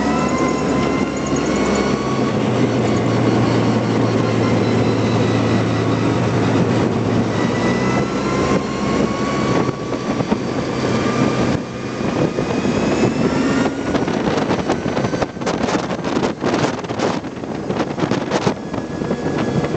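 Steady rush of wind and wheel noise from a vehicle moving fast, with a faint whine that slowly rises in pitch. In the last few seconds there is a run of sharp rattles and knocks.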